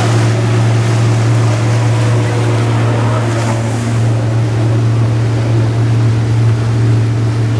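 Motorboat engine running steadily at speed, heard from aboard, with water rushing from the hull and wake, and a brief louder rush of spray about three seconds in.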